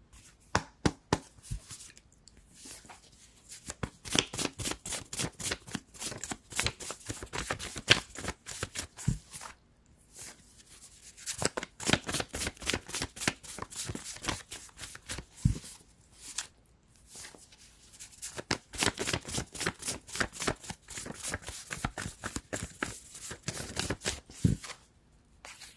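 Tarot cards being shuffled by hand: dense runs of quick card flicks and slaps in several long bursts with brief pauses between them.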